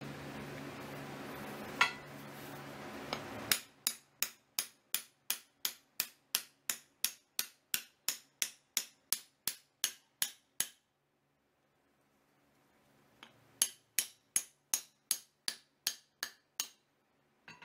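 A hand-forged steel cross-peen hammer head being driven onto its hickory handle by rapping the assembly on the anvil: sharp metallic knocks, about three a second, in two runs with a pause of a few seconds between.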